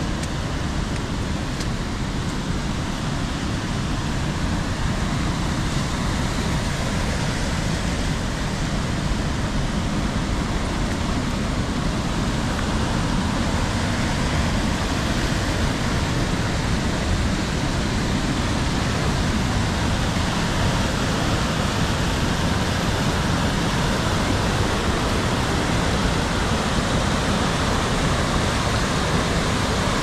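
Mountain creek rushing in white water over rocks, a steady noise that grows slightly louder as it gets nearer.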